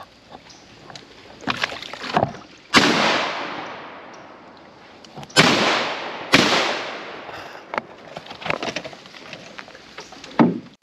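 Three shotgun shots, each dying away in a long echo: one shot, then about two and a half seconds later two more in quick succession. Small knocks and clicks come between them.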